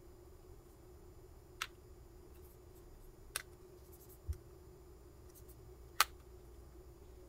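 Light clicks and taps of two folded Samsung Galaxy Z Flip 5 phones being handled and knocked against each other, four in all, the loudest about six seconds in, over a faint steady hum.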